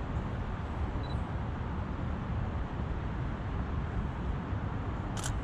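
Steady low outdoor rumble, with a single camera shutter click near the end.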